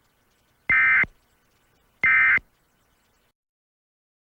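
Emergency Alert System SAME data bursts: two short, identical bursts of high digital tones about a second and a third apart, the last two of the three end-of-message bursts that close an EAS alert.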